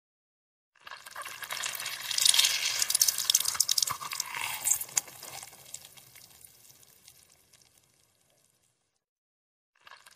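Half a blood orange being crushed in a bare hand: wet squelching and crackling of the pulp with juice spattering and dripping, loudest in the first few seconds of the squeeze and then dying away, with a short squish again near the end.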